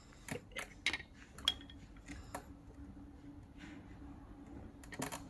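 Faint scattered metallic clicks and taps from a loosened disc brake caliper and its bolts being shifted by hand to centre it over the rotor, most of them in the first couple of seconds and two more near the end.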